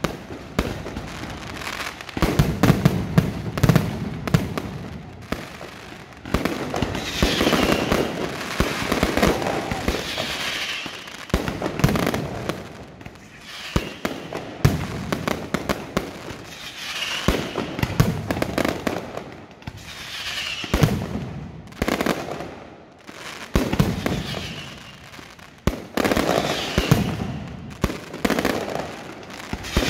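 Aerial firework shells launching and bursting in rapid succession: many sharp bangs and pops packed close together, swelling and fading in waves every few seconds.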